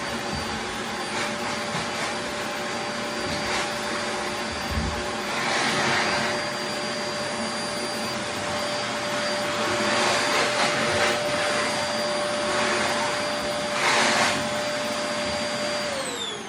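Vacuum cleaner running steadily, a high motor whine over a rushing hiss of suction that grows louder three or four times. Near the end the motor winds down, its pitch falling.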